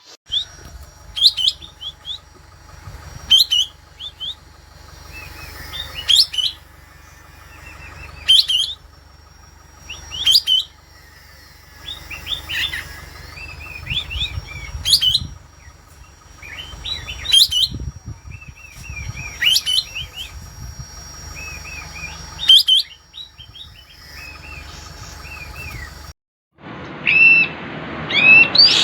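Kapas tembak bird singing hard in breeding condition: loud, sharp high notes about every two seconds, with softer chattering between them, over a low steady hum.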